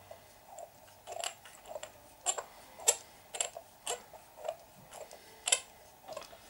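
Irregular light clicks and ticks of a small hand driver and screw working a plastic RC car steering part, about a dozen in all. Two sharper clicks stand out, about three seconds in and near five and a half seconds.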